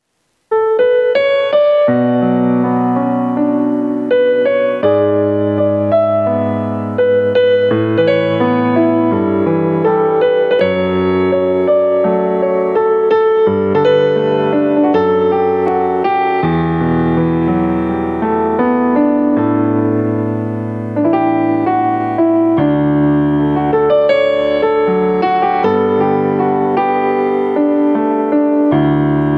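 Piano accompaniment playing the instrumental introduction of a slow song: chords struck and left to ring, changing every second or two.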